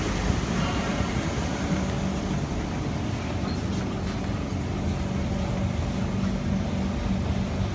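Steady hum and rumble of an MRT train standing at a platform with its doors open while passengers board.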